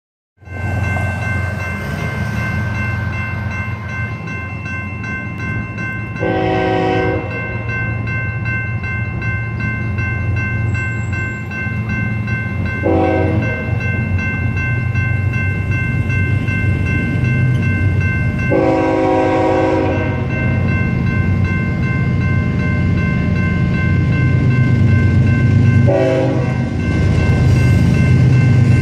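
Approaching BNSF intermodal freight train: the diesel locomotives give a low rumble that grows steadily louder. The air horn sounds four blasts, alternating long and short. A grade-crossing bell rings steadily over it.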